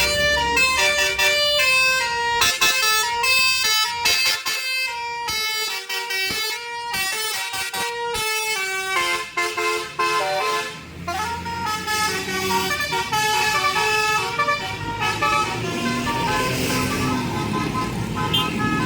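Telolet basuri musical horn on a BEsT Premium bus, sounded through a roof-mounted horn trumpet, playing quick tunes of stepping notes in several phrases. From about nine seconds in, a steady rumble lies under the horn.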